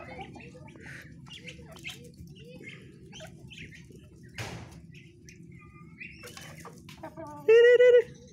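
Chickens and young Muscovy ducks feeding together, with scattered short soft calls and pecking and scuffling sounds, and a brief wing flap about halfway. Near the end one bird gives a single loud, short call, the loudest sound.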